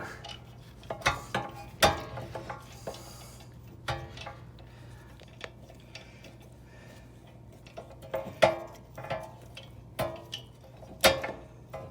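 Irregular metallic clicks and knocks of hand tools working a rear brake caliper: a ratchet turning the caliper's parking-brake screw in with a T40 bit while a caliper squeezer presses the piston back. The screw has to be turned in step with the squeezing, or the electric parking-brake mechanism locks.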